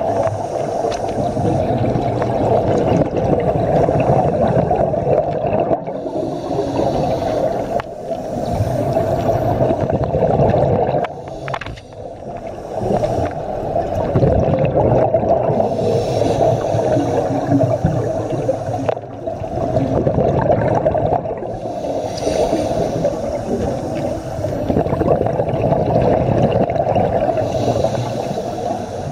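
Scuba breathing heard underwater: a diver's regulator and its exhaust bubbles gurgling steadily, swelling and easing every few seconds with each breath.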